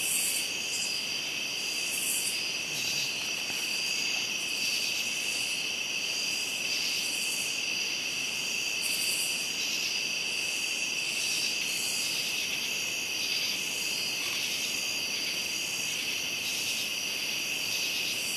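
Night insect chorus of crickets trilling steadily, with a higher-pitched call pulsing every second or two.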